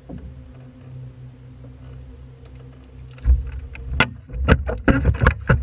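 A steady low hum, then from about three seconds in a quick run of loud knocks and thumps on the deck of a fishing boat.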